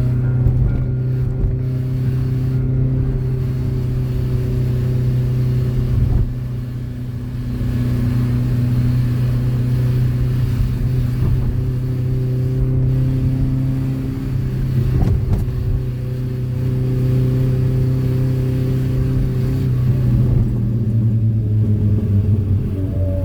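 Old car's engine and new custom exhaust droning at steady cruising revs, easing off briefly about six seconds in, then dropping lower in pitch near the end.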